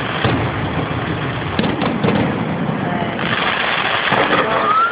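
Fireworks display going off: a dense run of bangs and crackling, turning about three seconds in to a loud steady hiss as a fan of white streaking fireworks shoots up.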